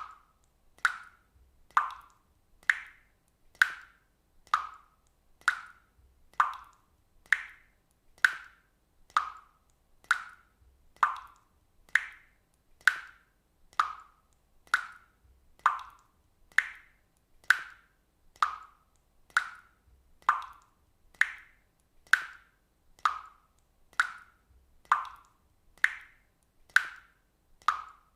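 Water droplets falling one at a time into water, an evenly spaced plop a little more than once a second. Each drop is short, with a brief ringing tone that shifts slightly in pitch from drop to drop.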